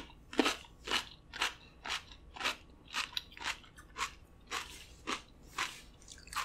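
A mouthful of raw cucumber being chewed close to the microphone, crunching in a steady rhythm of about two crunches a second.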